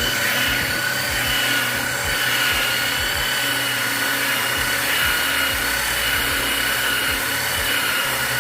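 Electric power tool motor running at a steady high speed, a constant high-pitched whine, as the carpenter works wood.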